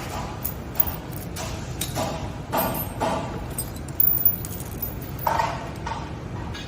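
Tools and metal parts knocking and clinking irregularly during scooter rear-motor repair work, a few of the knocks ringing briefly.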